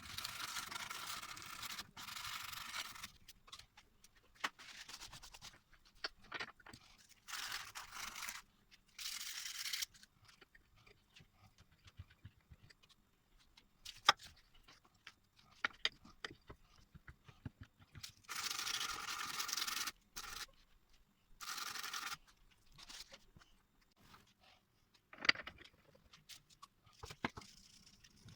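Hand work on a pair of antique pliers: several bursts of scraping noise lasting one to three seconds, between scattered light clicks and knocks.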